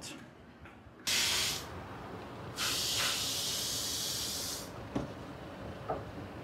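Two bursts of hissing spray: a short one about a second in, then a longer, higher-pitched one lasting about two seconds. A light click follows.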